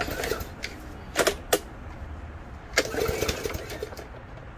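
Craftsman gas push mower running steadily while cutting tall grass, with a few sharp knocks about a second in and again near three seconds.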